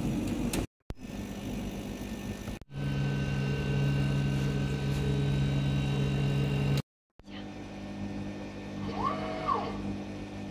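Steady hum from a laser engraving machine, cut by two short gaps. About nine seconds in, a stepper motor gives a brief whine that rises, holds and falls as an axis is jogged from the control panel's arrow keys.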